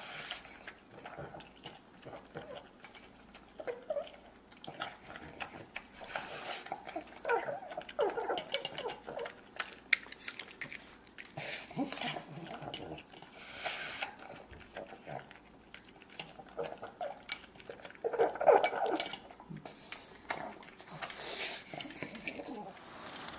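Animal noises: short, uneven calls that bend up and down in pitch, with scattered clicks.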